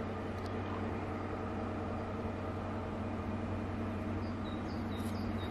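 A distant engine running with a steady low drone. A few short bird chirps, each falling in pitch, come near the end.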